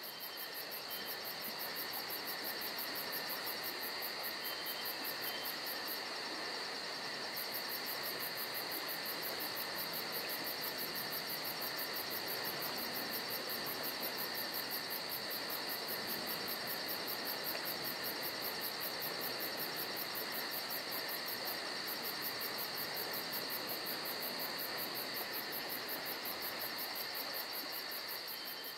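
Insect chorus: a fast, even, very high pulsing trill, stopping for about a second around six seconds in, over a continuous high-pitched buzz from other insects.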